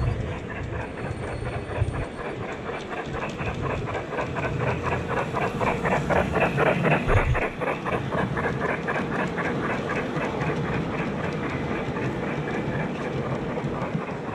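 Garden-railway model train rolling past, its wheels clicking rapidly and evenly on the track over a low rumble. It grows louder as the cars near and is loudest about halfway through.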